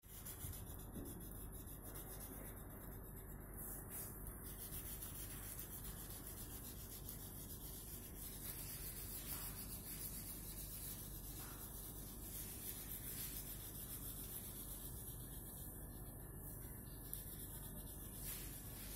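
Coloured pencil rubbing back and forth on a sheet of paper, a steady scratchy shading sound that goes on without a break.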